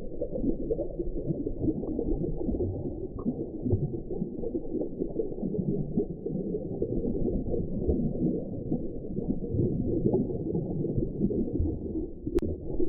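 Underwater sea ambience a few metres below the surface: a steady, muffled churning rumble with nothing heard above the low and middle range. A single sharp click comes near the end.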